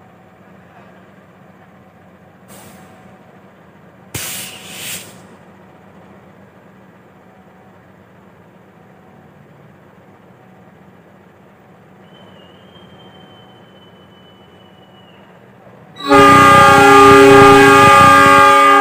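CC206 diesel locomotive's air horn sounding one long, loud blast near the end, the driver's signal that the train is about to depart. Before it, the locomotive idles low, with a short burst of hissing about four seconds in and a thin steady whistle tone a little after the middle.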